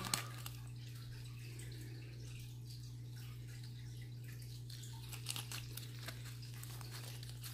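Quiet room tone with a steady low hum, and a few faint clicks and light rustles about five seconds in.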